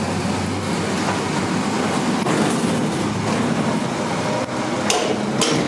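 1980s Dover hydraulic elevator running with the car in motion: a steady rumble and rattle over a low hum, with two sharp clicks near the end.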